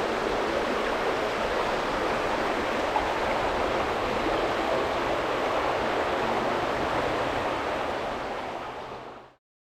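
Fast-moving creek water rushing steadily, fading out about nine seconds in.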